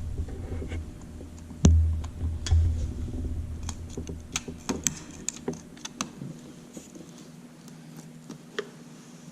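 Scattered light clicks and taps, with a low rumble in the first few seconds, over faint background music.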